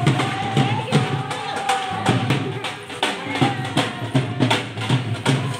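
Dhol drum beaten in a steady, even rhythm, with a long held note over the beat for the first couple of seconds.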